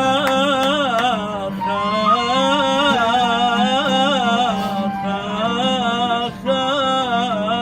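Arabic-style music: a wavering, heavily ornamented melody line over a steady low drone, with a brief break about six seconds in.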